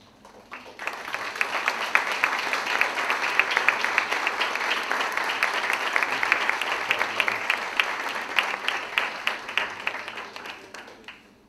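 Audience applauding: dense clapping swells up about a second in, holds steady, then dies away near the end.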